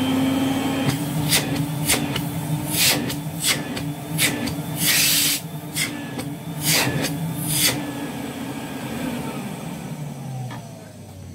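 1976 Electrolux Z87 cylinder vacuum cleaner running with a steady hum, with several short bursts of rushing noise. Near the end it is switched off and the motor winds down slowly with a falling whine: it takes longer to wind down now, a sign that its freshly serviced bearings turn freely.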